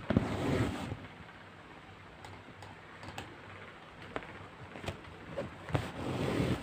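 Handling noise as hands work yarn through rug canvas: scattered light clicks and rustles, with two louder brushing bursts, one right at the start and one near the end, as a hand passes close to the microphone.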